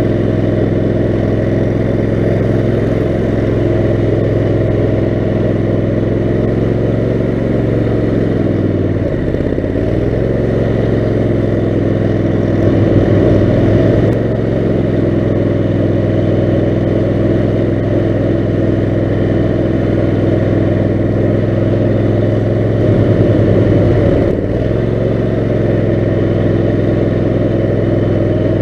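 Kohler 18 HP Command engine of an offroad lawn mower running steadily under way. Its note dips and rises briefly about nine seconds in and again around 23 seconds, with short louder swells as the throttle or load changes.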